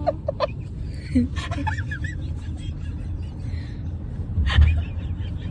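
Steady low rumble of a car's engine and road noise heard inside the cabin, with a few brief voice sounds in the first two seconds and a loud thump about four and a half seconds in.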